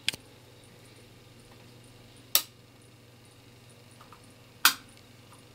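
Three short sharp clicks, about two and a half seconds apart, over a faint steady low hum.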